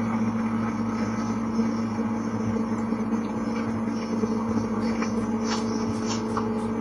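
Steady low electrical hum with constant hiss, with a few faint ticks near the end.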